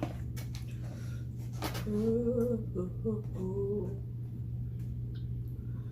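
A person humming two short, level closed-mouth notes, about two and three seconds in, over a steady low hum, with a few sharp clicks in the first couple of seconds.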